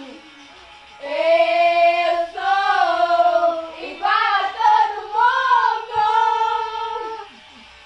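A young girl singing loudly in long, held notes, in several phrases that start about a second in and stop shortly before the end.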